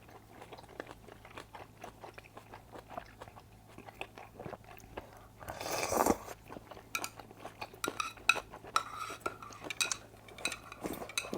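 Close-up eating sounds: chewing and crunching, with utensils clicking against dishes, and one louder noisy sound about six seconds in.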